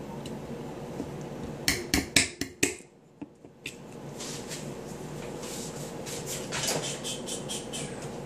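A key striking the top of a 16 oz Miller Lite aluminium can, about five sharp metallic taps around two seconds in, punching the can's second vent hole so the beer pours more freely. Softer handling clicks follow.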